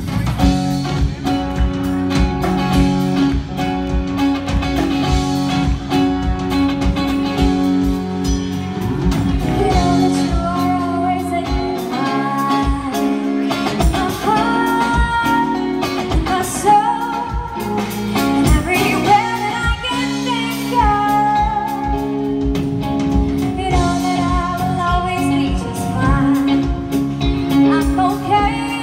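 Live band playing with a woman singing lead over electric guitar, bass guitar and drum kit.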